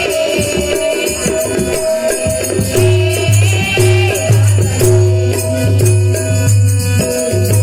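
Marathi devotional bhajan music: a harmonium plays held, stepping notes under a sung melody, with jingling hand percussion and drum strokes keeping a steady beat.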